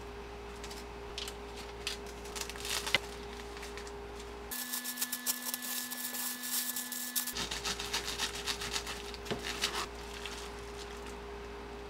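Food-prep handling sounds: a spatula scraping fillings onto rice on a seaweed sheet, then about three seconds of crinkling plastic wrap folded around the filled seaweed, followed by more rustling scrapes on a wooden cutting board.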